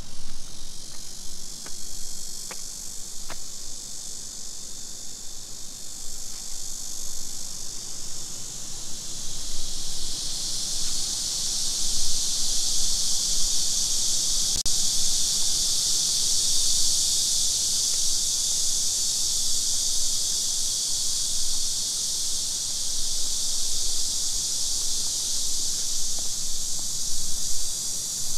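Dense insect chorus, a steady high-pitched buzz that swells louder about ten seconds in and then holds.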